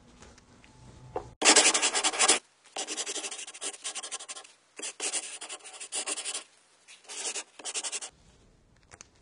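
Marker pen writing on a whiteboard: a run of about seven separate strokes, the first and loudest about a second and a half in, the last just before the end.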